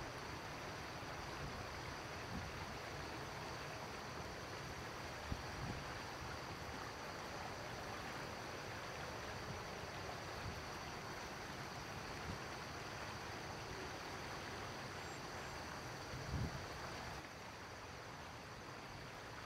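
Shallow river water running and rippling over rocks: a steady rushing.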